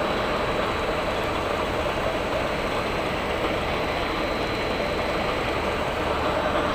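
Wood veneer rotary lathe running, a loud steady mechanical noise that holds even throughout, with a faint constant whine.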